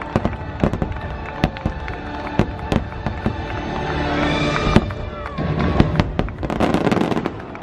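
Fireworks show: aerial shells bursting in quick succession over the show's orchestral soundtrack playing from loudspeakers, with a dense cluster of bangs near the end.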